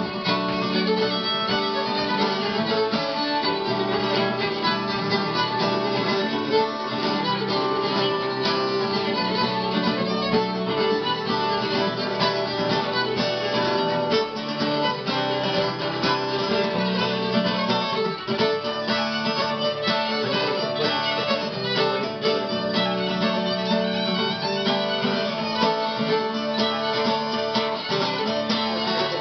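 Irish traditional reel played live at a brisk, even pace, with fiddle carrying the tune over guitar accompaniment.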